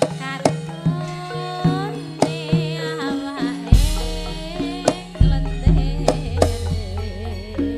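Live Javanese gamelan music accompanying tayub: hand-drum (kendang) strokes about twice a second under held metallophone notes, with a female singer (sindhen) singing a wavering, ornamented line through a microphone. A deep low note comes in about four seconds in and carries on.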